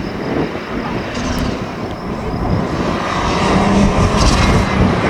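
Rally car engine approaching at speed, growing steadily louder over the second half.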